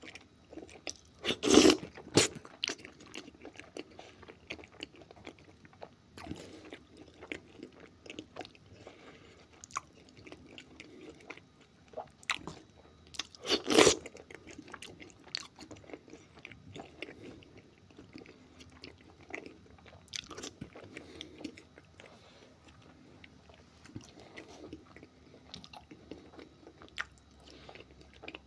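Close-up eating sounds of a person chewing spoonfuls of beans in tomato sauce, with many small wet mouth clicks. Two louder moments come as a spoonful goes into the mouth, about a second and a half in and again about halfway.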